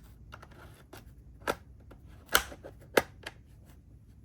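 Plastic back cover of an MSI Claw A8 handheld being pried open: a handful of sharp plastic clicks and snaps, the three loudest about a second and a half, two and a half and three seconds in.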